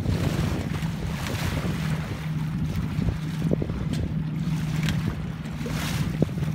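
Alberg 30 sailboat under way: a steady low engine hum under water rushing and splashing along the hull, with wind buffeting the microphone.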